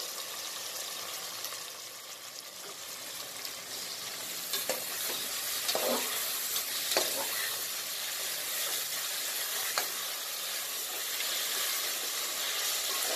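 Sliced onions, green chillies and cashews sizzling in hot oil and ghee in an aluminium pressure cooker, with ginger paste just added. A metal ladle stirs and scrapes against the pot several times, and the sizzle grows louder a few seconds in.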